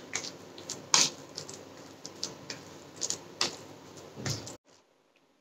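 Fingers mixing a moist ground masala paste on a steel plate, with a few sharp clicks, the loudest about a second in and near three and a half seconds. The sound stops abruptly a little after four and a half seconds.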